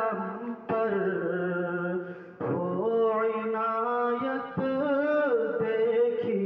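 Background music: a solo voice singing slow phrases of long held notes that slide between pitches, with brief breaks between phrases.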